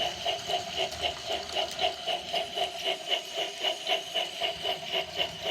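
Battery-powered remote-control TrackMaster Molly toy train engine running along its plastic track: a steady motor whine with a rapid, even pulsing.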